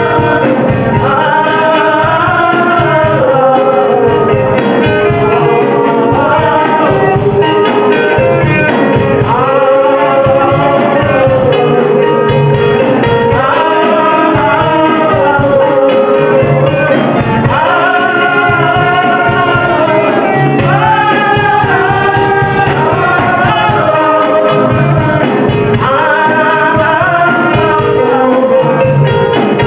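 A woman singing a worship praise song into a handheld microphone, amplified, over backing music with a steady beat, in long melodic phrases.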